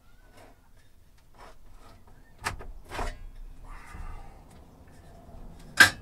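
Scattered knocks and clatter of hand work: two knocks about halfway through, a brief scraping rustle after them, and one sharp, loud knock near the end.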